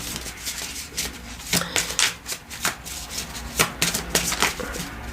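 Tarot cards being handled and shuffled: a run of irregular card clicks and rustles.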